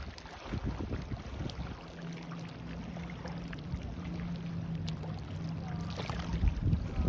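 Steady hum of a distant motorboat engine over low wind rumble on the microphone and lapping water. The hum comes in about two seconds in and fades near the end.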